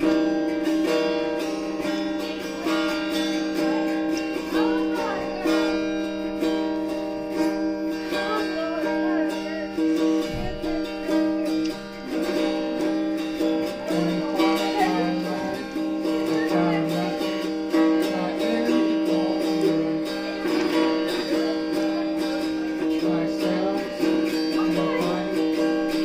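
Electric guitar playing a slow song, sustained chords ringing steadily with single notes moving over them.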